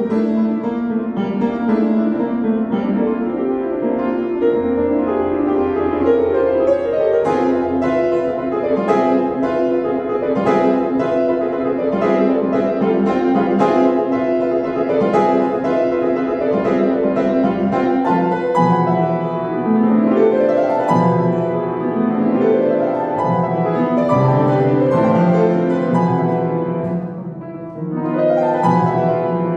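Solo classical piano piece played on a Kawai upright piano, with dense running notes. Heavier bass notes come in about two-thirds of the way through, and the playing softens briefly near the end.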